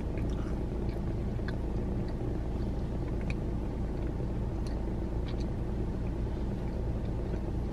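Steady low rumble of a car idling, heard from inside the cabin, with a few faint scattered clicks over it.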